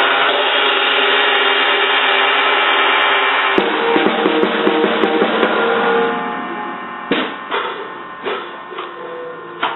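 Drum kit being banged on unevenly by a small child. It starts as a dense, continuous clatter. A sharp hit a few seconds in starts a run of quick strikes, which then thin out into scattered single hits, each with a short ring.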